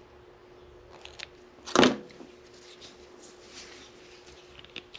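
A single short, sharp snip of line cutters closing on braided fishing line to trim the tag end of a double uni knot, about two seconds in, with a few faint clicks of the tool and line being handled.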